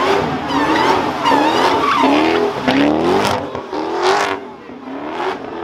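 Chrysler 300 doing donuts: its engine revs up again and again in rising sweeps while the rear tyres spin and squeal on the asphalt. The tyre screech swells loudest twice, around the middle.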